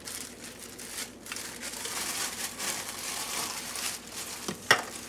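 Plastic packaging bag crinkling and rustling as blender parts are handled, with one sharp knock near the end.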